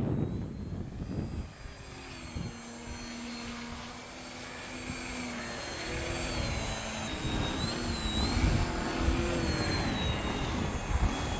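Electric brushless motor and propeller of an RC Firehawk model plane whining, its pitch rising and falling as the throttle changes, with gusts of wind rumbling on the microphone.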